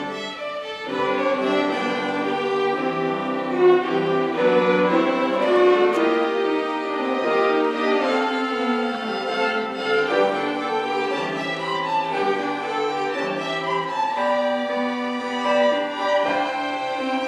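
A string orchestra playing, violins and cellos carrying sustained melodic lines over a steady bass.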